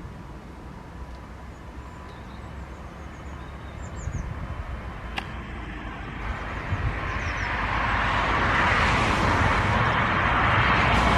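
Airbus A319 jet engines at takeoff power, a rising roar that grows steadily louder through the second half as the airliner comes down the runway.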